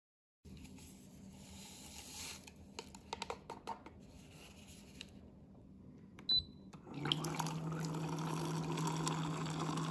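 A few small clicks and rustles as instant coffee granules are shaken from a stick packet into a glass, then a short beep and a hot water dispenser pouring a steady stream into the glass, with a steady low hum under the pour.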